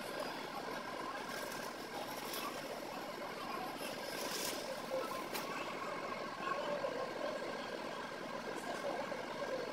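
Steady background noise with a faint hum, and a few brief crinkles of a plastic shopping bag being handled, the clearest about four to five seconds in.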